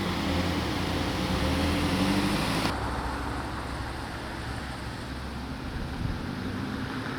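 Motor vehicle engine running steadily with road traffic noise; about three seconds in the sound changes abruptly and loses its high hiss.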